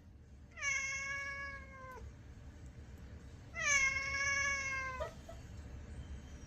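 Domestic cat meowing twice: two long, drawn-out meows about three seconds apart, each dropping in pitch at its end.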